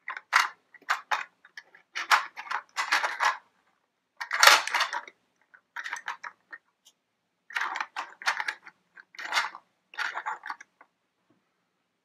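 CAT Mini Mighty Machines plastic toy vehicles being rolled and set down on a plastic Matchbox folding construction playset: irregular bursts of plastic clattering and rattling.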